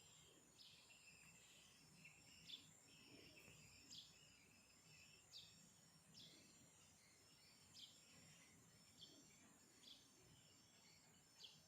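Faint, short bird chirps repeating about once a second over a thin, steady high-pitched background trill.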